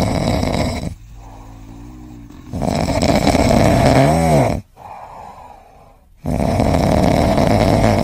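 Sleeping domestic cat snoring: three loud snores about three seconds apart, with quieter breaths between them.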